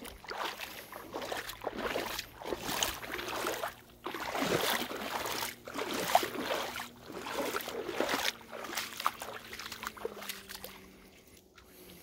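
Kayak paddle strokes: the blades dipping into and pulling through the water with a splashing rush, about once a second.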